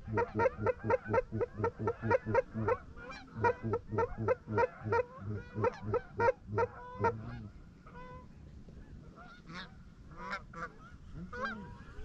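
Canada goose calls blown by hunters in a fast, even run of honks and clucks, about four a second, calling to a circling flock of Canada geese. About seven seconds in the calling thins to scattered, fainter honks.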